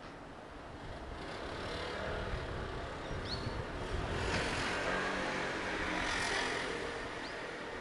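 A vehicle passing on a nearby road: its noise builds over the first few seconds, is loudest around the middle, and fades toward the end. Two short high chirps sound above it, about three seconds in and again near the end.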